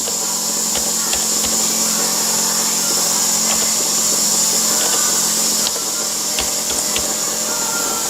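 Small air compressor running, a steady hum under a high hiss; the hum drops out a little after halfway while the hiss carries on. Faint clicks of typing on a keyboard come through over it.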